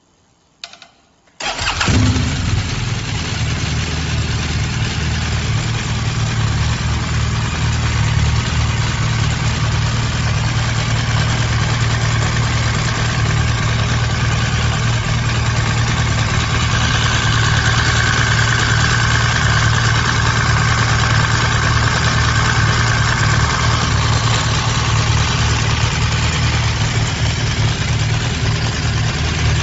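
Motorcycle engine with a see-through engine cover starting: a brief click, then the engine catches about a second and a half in and settles into a steady idle.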